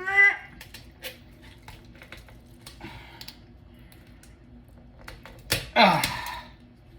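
Turkey backbone being cut out, with scattered small clicks and crunches from the blade working through bone and cartilage and a sharp crack about five and a half seconds in. A short rising grunt of effort at the start and a louder falling groan after the crack.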